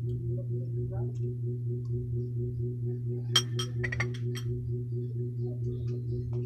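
A steady low electrical hum with a faint regular pulse throughout. Midway, a quick run of sharp mouth clicks and smacks from chewing food.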